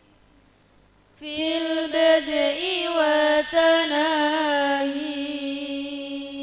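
A single woman's voice chanting an ornamented melody that winds up and down. It comes in about a second in and ends on a long held note.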